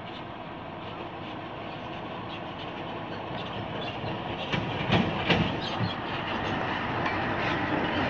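Mitsubishi Fuso dump truck's diesel engine running as the truck approaches and passes close by, growing louder, with a cluster of loud knocks and rattles about five seconds in as it goes past.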